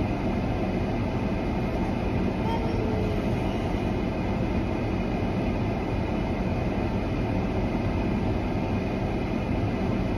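Steady low rumble and hiss of a running car, heard inside its cabin.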